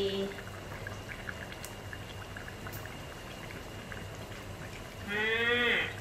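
Pork-rib braising liquid simmering in a wok, bubbling steadily with many small pops. A single spoken word cuts in near the end.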